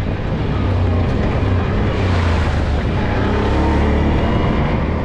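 Four-wheeler (ATV) engine running steadily with a low hum, as it is ridden.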